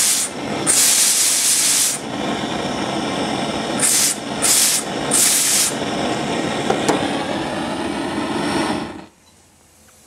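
Steam hissing out of the open valve of a homemade steam boiler built from a blowtorch gas bottle, with several louder spurts. The pressure is being released, and the hiss cuts off suddenly about nine seconds in.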